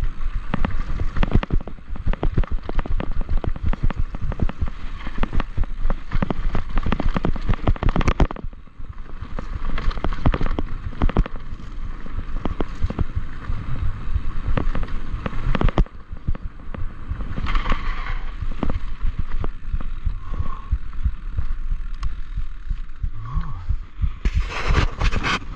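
Mountain bike clattering and jolting fast down a rocky dirt trail, heard from a camera mounted on the rider: dense irregular knocks and rattles of the frame, chain and suspension over stones, with a rumble of tyres on dirt. The clatter eases over a smoother stretch in the middle, and a louder rush of hiss comes in near the end.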